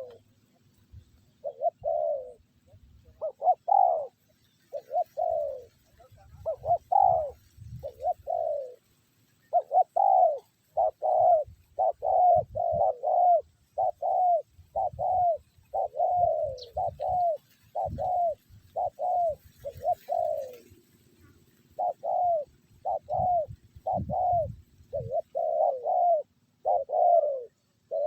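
Spotted dove cooing: a long run of arched, rise-and-fall coo notes at about one a second, pausing briefly twice.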